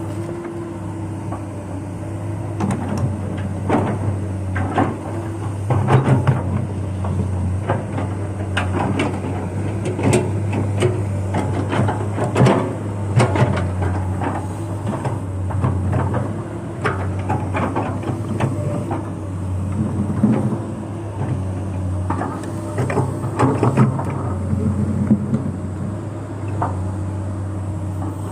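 Komatsu PC200 hydraulic excavator's diesel engine running steadily under work, with frequent irregular knocks and clanks from the machine as it digs.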